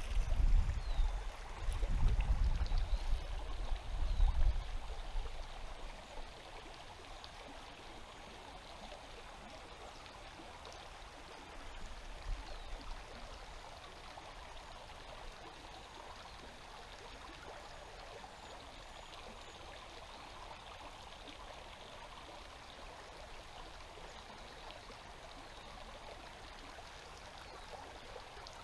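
Steady rush of a shallow river flowing over a rocky bed, with low rumbling on the microphone during the first few seconds.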